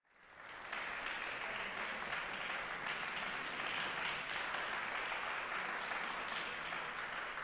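Audience applauding, fading in over the first second and holding steady.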